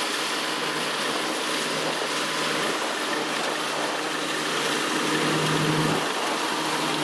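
Kubota rice combine harvester running while it cuts rice: a steady engine hum under the rush of the cutting and threshing machinery, growing a little louder about five seconds in as the machine comes closer.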